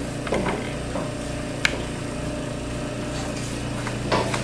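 A few short, sharp clinks of kitchen utensils against dishes, over a steady low hum.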